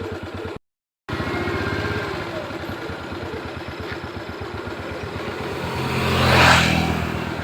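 Vehicle engine idling with a steady, even low pulse, broken by a brief total dropout about half a second in. Near the end a loud rushing swell rises and falls away.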